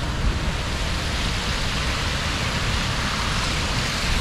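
Steady rushing of rainwater, with a low, uneven wind rumble on the microphone.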